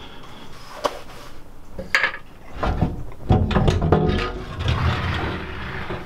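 Narrowboat's painted steel sliding rear hatch and stern doors being opened: a sharp knock about a second in and another at two seconds, then a long rumbling, scraping slide as the hatch is pushed back.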